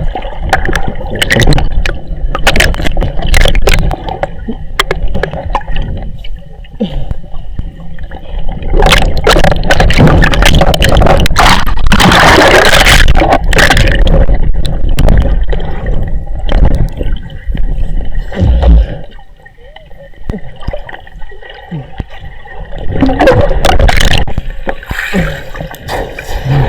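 River water splashing and gurgling right at the microphone, over a heavy low rumble. There is a long loud splash about twelve seconds in, and it quiets sharply about nineteen seconds in.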